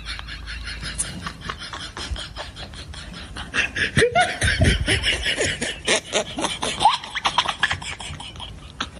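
Laughter with many clicky mouth sounds, loudest in the middle stretch, from about three and a half seconds in.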